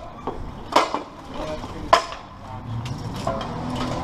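Sharp metallic clanks of steel plate armour and weapons striking during close-quarters armoured-combat sparring, four hits with the two loudest about a second apart, followed by a low steady rumble.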